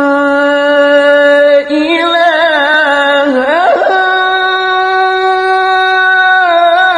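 A male Qur'an reciter chanting in the melodic tilawah style, drawing out long notes: a steady held note, then a wavering ornamented passage with a rising slide about halfway, then a higher held note that drops near the end.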